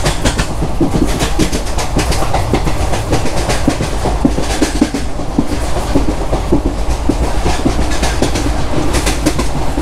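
Wheels of an ICF passenger coach running fast over the track: a steady rumble with a dense run of clicks and clacks from the rails.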